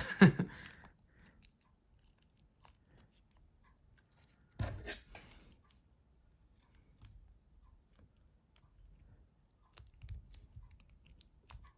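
Small clicks, scrapes and rustles of a Nokia 6700 Classic's parts being handled and fitted together during reassembly. There is a louder knock right at the start and a short cluster of clicks about five seconds in.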